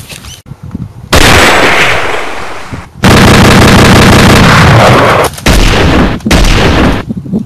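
Loud, distorted automatic gunfire sound effect in three long bursts that start and stop abruptly, the first fading away over about two seconds.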